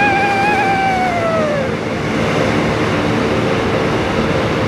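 Motorcycle running at speed through a road tunnel, with a steady rush of engine and road noise. At the start a held tone with a few overtones slides down in pitch and fades out about a second and a half in.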